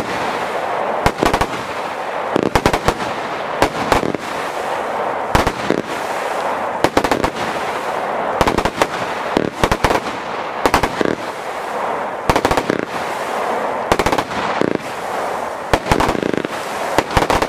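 Lesli Thunderkong XXL salute battery firing: loud bangs, often in quick pairs, about every second and a half, over a continuous hiss.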